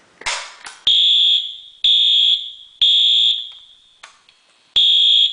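A short clatter as the Fire-Lite BG-10 pull station is pulled, then a Wheelock AS fire alarm horn sounds, loud even on its low-volume setting. It gives three short high-pitched blasts about a second apart, pauses, and starts the next three near the end: the code 3 (temporal-three) evacuation pattern.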